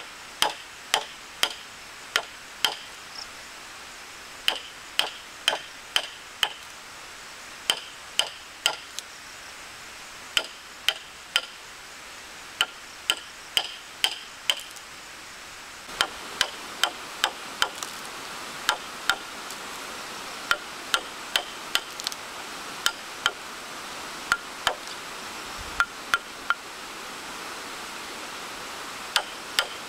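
Wooden mallet striking a wood chisel as it cuts a joint notch into a timber beam: sharp knocks in short runs of three or four, about one to two a second, with short pauses between runs.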